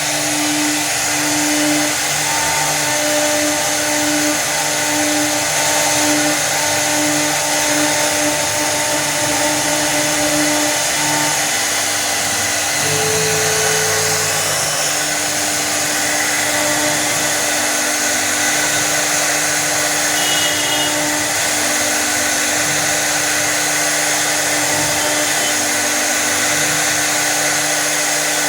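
CNC router spindle running continuously with a steady hiss and whine, with lower motor tones underneath that pulse, stop and shift in pitch every few seconds.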